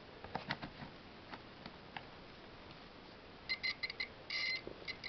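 DT838 digital multimeter's continuity buzzer beeping in short, broken bursts from about three and a half seconds in, with one longer beep, as the probe makes and breaks contact on the motor's metal. The beep signals a closed circuit between the probes. Before that, a few light clicks of the probe tips knocking on metal.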